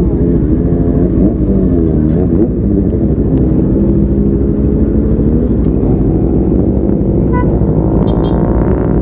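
CFmoto NK400 motorcycle engine running at low revs, its pitch wavering a little in the first couple of seconds and then holding steady.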